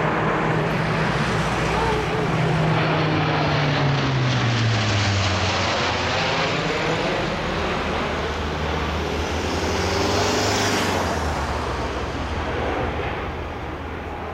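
Lockheed Martin C-130J Hercules turboprop transport flying a display pass: the drone of its four turboprop engines and six-bladed propellers, a low propeller hum that drops in pitch as the aircraft passes overhead a few seconds in, then fades slightly as it flies away near the end.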